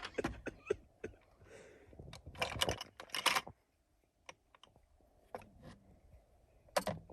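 Quick runs of light, sharp clicks and clatters, like small hard objects being handled or tapped, with a last short burst near the end.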